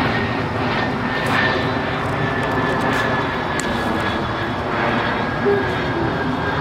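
Airplane flying overhead: a steady rumble with a thin high whine that slowly falls in pitch.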